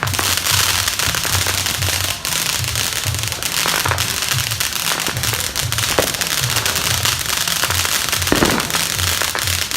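Fireworks crackling and popping in a dense, continuous rapid-fire stream, with a few sharper bangs standing out, about six and eight seconds in.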